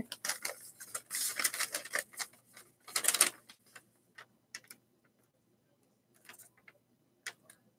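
Paper rustling and crinkling as a letter is opened and unfolded: a run of crackles and scrapes over the first three seconds or so, then a few scattered small clicks.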